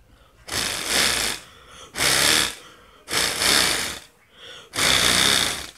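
Homemade paper pinwheel blown hard by mouth four times, each breath lasting under a second; the spinning paper blades whir and rattle against the pin with a fast buzz likened to a dirt bike engine.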